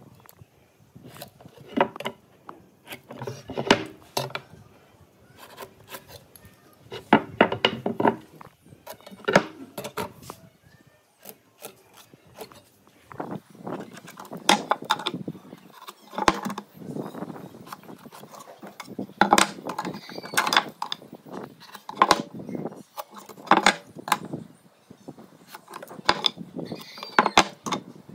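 Pine boards and a steel square being handled on a wooden workbench: scattered knocks, taps and rubbing as cut lines are marked out by hand.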